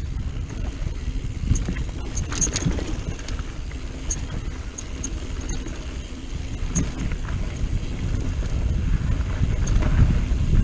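Mountain bike rolling downhill on a dirt singletrack: tyres on dirt and wind buffeting the microphone make a steady low rumble, with scattered sharp clicks. It grows louder near the end as the bike picks up speed.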